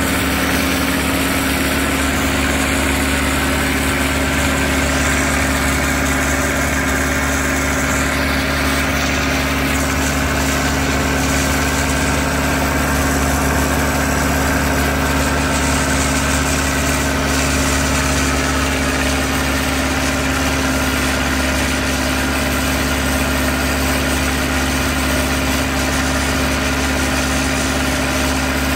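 Allis-Chalmers D19 tractor engine running at a steady speed through its tall straight exhaust stack, held on a dynamometer. The pitch does not rise or fall.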